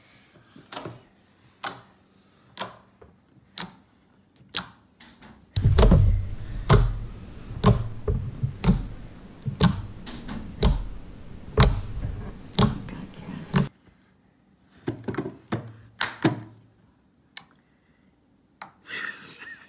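Glossy slime poked and pressed with fingertips, making sharp clicks and pops. The clicks come about once a second at first, then a denser, louder run with low thuds from about six to fourteen seconds, then sparse again.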